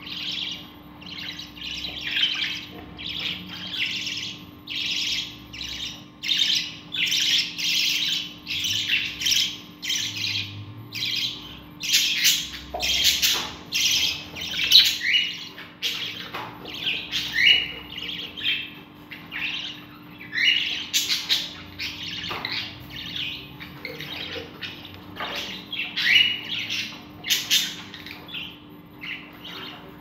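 Budgerigars calling in a rapid run of raspy chirps, about two a second, with a few short rising squeaks: the begging calls of a young budgie being fed by its parent.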